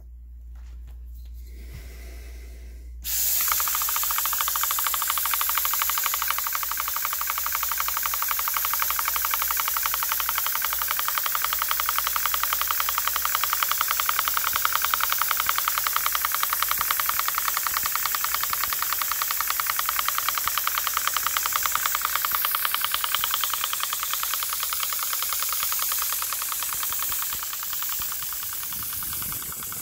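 Small three-cylinder radial model steam engine with a disc valve, starting up about three seconds in and running fast. Its exhaust makes a steady hiss with rapid, even pulses, easing off slightly near the end.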